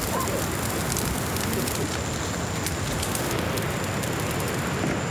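Bonfire of dry branches crackling, with sharp pops scattered over a steady rushing noise.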